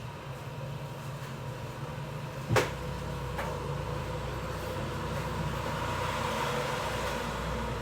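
A steady hum with faint steady whines, and one sharp click about two and a half seconds in.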